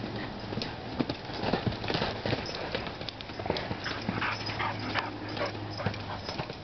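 An Appaloosa filly's hooves striking dirt and sand in uneven beats as she trots and canters loose, with short higher noises between the hoofbeats.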